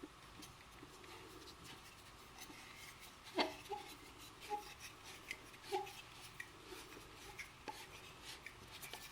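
Faint handling sounds of a Razer Seiren X microphone desk stand being put together: the metal tube screwed into the base and the microphone screwed on top, giving scattered light clicks and taps, the sharpest about three and a half seconds in.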